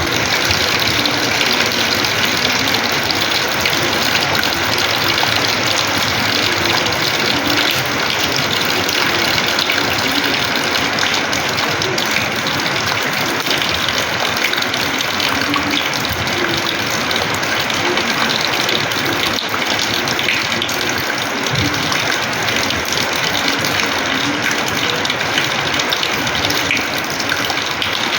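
Rainwater gushing and splashing steadily onto a house's terrace floor, a dense unbroken rush of water.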